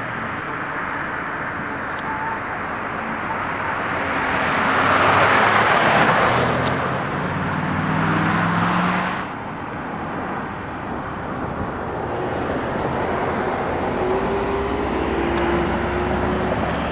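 Road traffic: a passing car's tyre and engine noise swells to a peak about five or six seconds in and fades, over a steady background of traffic noise. The level drops suddenly about nine seconds in, leaving quieter road noise.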